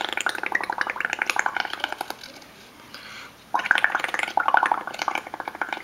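Blowing through a drinking straw into a bowl of tempera paint mixed with soapy bubble solution: a rapid bubbling gurgle in two long blows, with a short pause about two seconds in.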